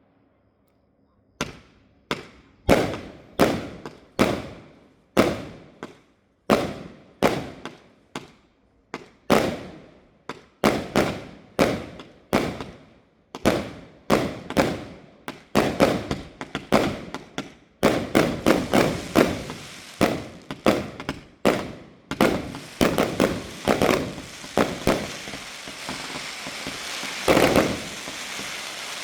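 Fireworks bursting one after another, each bang fading away over about a second, at roughly one to two a second. About two-thirds of the way in, the bursts come faster and overlap over a continuous crackling.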